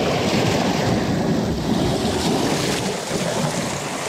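Sea water surging and washing over shoreline rocks, with wind noise on the microphone.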